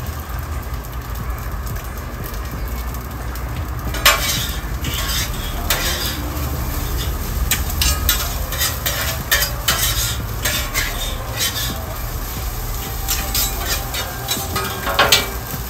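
Fried rice sizzling on a Blackstone steel griddle while two metal spatulas chop and scrape through it. Sharp clacks of the spatulas on the plate come thick and fast from about four seconds in.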